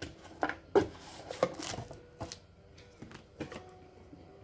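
Irregular clicks, taps and light rustling of packaging and parts being handled as a box is unpacked.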